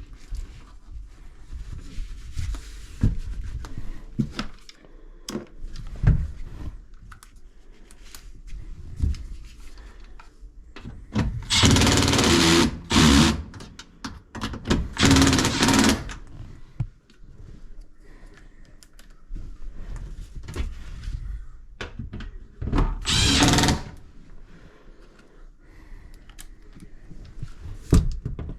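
Power drill running in short runs of a second or two, three times: twice around the middle and once near the end. Short knocks and clatter of handling tools and parts come between the runs.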